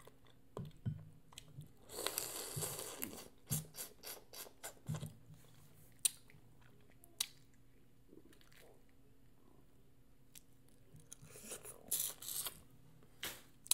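Close-up eating sounds of boiled crawfish: wet chewing and small clicks, with two longer slurps as the crawfish is sucked, about two seconds in and again near the end.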